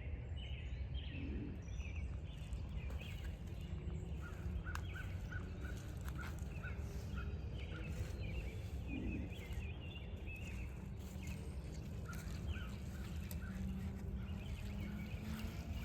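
Small birds chirping and calling in short repeated notes over a steady low rumble of outdoor background noise.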